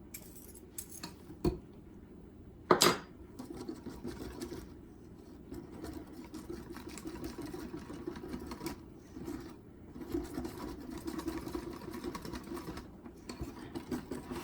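Pancake batter being mixed in a bowl: a couple of knocks near the start, then steady rhythmic stirring and scraping through the batter.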